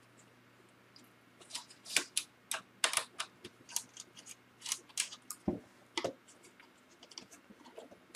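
Small hand screwdriver backing out the screws of a laptop's CPU/GPU heatsink: a run of light, irregular clicks, a few a second, with one duller knock midway.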